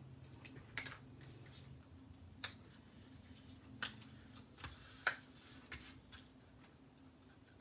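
Faint, irregular clicks and light scratches of a pointed craft tool picking at the edge of tear and tape on a paper panel to lift its backing liner, over a faint low hum.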